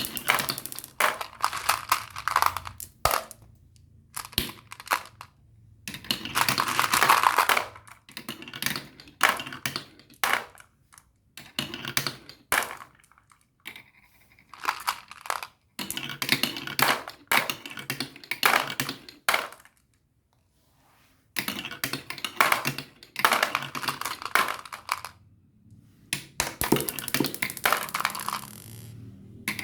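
Marbles rolling and clattering down a marble run track, with dense rapid clicks in bursts of a few seconds, broken by brief silences.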